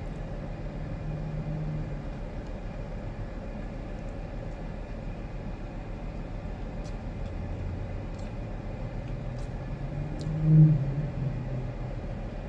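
Low rumble of car traffic, with one loud car going by close about ten and a half seconds in, its engine rising sharply to a peak and then fading.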